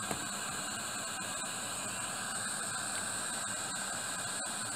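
Butane torch flame hissing steadily as it heats a model steam engine's copper boiler, before the engine runs.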